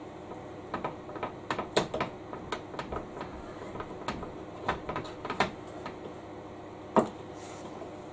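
Light clicks and knocks of metal fittings being handled and adjusted on a JET wood lathe's tailstock and tool rest, irregular, with one sharper knock about seven seconds in.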